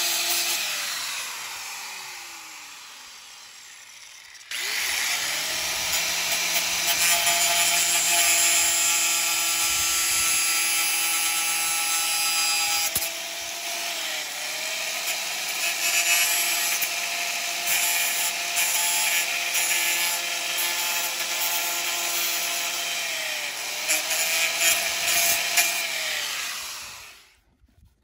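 Electric angle grinder with an abrasive disc cutting into PVC pipe. Its motor spins down over the first few seconds, starts up again about four seconds in and runs at speed, its pitch dipping briefly twice as the disc bites into the pipe. The sound cuts off just before the end.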